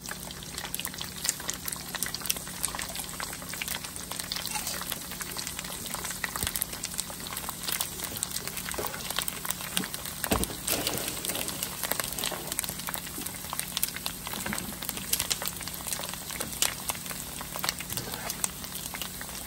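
Pork skin pellets deep-frying in hot oil, a dense, steady crackle and sizzle as they puff up into rinds.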